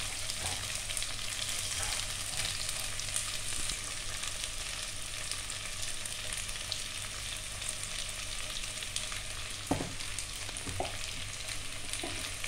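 Sliced onions, green chillies and curry leaves sizzling steadily in hot oil in an aluminium pot, with a couple of light knocks about ten seconds in.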